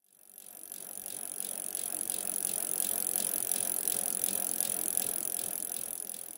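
Rhythmic mechanical clicking, about four to five a second, over a steady hiss; it fades in at the start and out near the end.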